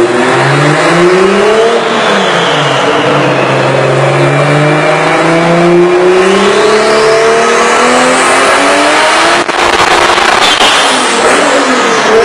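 Heavily tuned Toyota Supra 2JZ inline-six revving hard on a chassis dyno, its pitch climbing and falling through the run. A high whine climbs steeply about halfway through, and the sound breaks off for a moment just before ten seconds in. Near the end a falling whine follows.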